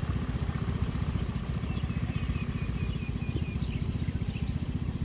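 A steady, rapidly pulsing low rumble runs throughout, with a bird giving a quick run of about seven short, high chirps in the middle.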